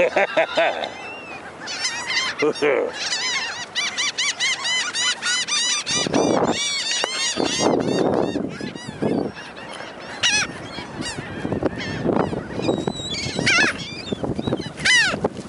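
A flock of gulls calling over one another, a dense run of rapid, high, arched cries through the first half that thins out toward the end.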